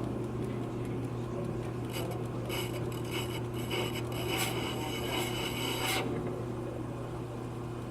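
Off-car brake lathe running with a steady hum while its cutting bit scrapes across the spinning Jeep Liberty brake rotor for the scratch test. A harsh rasping scrape starts about two seconds in and stops about six seconds in.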